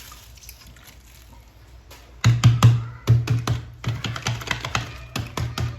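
A quiet stretch, then from about two seconds in a rapid, irregular run of sharp clicks and knocks.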